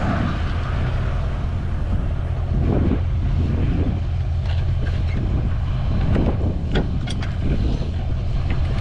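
A pickup truck's engine idling steadily, a constant low rumble. Near the end a few sharp metallic clicks come from handling the boat trailer's bow winch and strap.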